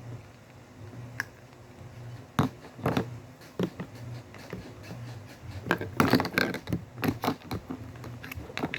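Scattered clicks, knocks and scrapes of small objects being handled, busier in the second half, over a faint low steady hum.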